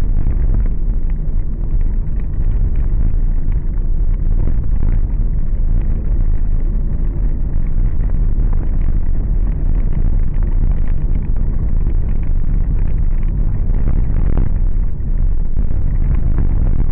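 Car driving over a rough, patched road: a steady low rumble of road and engine noise with scattered knocks from the bumps, and one louder knock late on.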